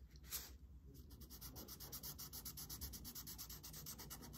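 Felt-tip marker scribbling on paper as an area is coloured in: a single scrape near the start, then a quick, even run of back-and-forth strokes, about eight or nine a second.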